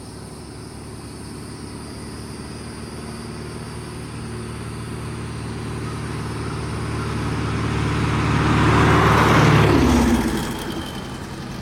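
Turbocharged air-cooled Volkswagen Beetle driving past: its engine grows steadily louder as it approaches, is loudest about nine and a half seconds in, then the note drops in pitch and fades quickly as it goes by.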